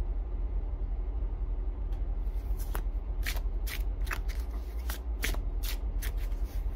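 A tarot deck being shuffled by hand: a run of quick card slaps and flicks, about two or three a second, starting about two seconds in, over a steady low hum.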